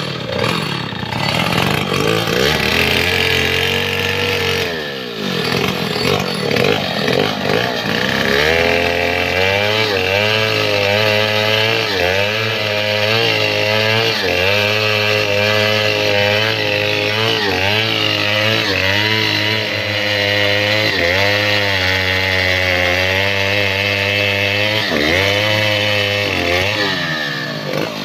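Stihl 070 two-stroke chainsaw cutting through a felled mahogany log under load. The revs sag about five seconds in, then it runs steadily at high revs with a slightly wavering pitch as the chain bites, and falls off near the end.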